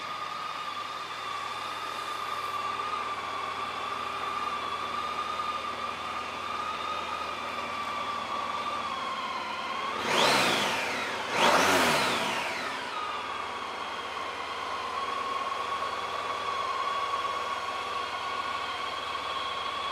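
Honda ST1300's V4 engine idling steadily, with the throttle blipped twice about halfway through. Each rev rises and falls back to idle.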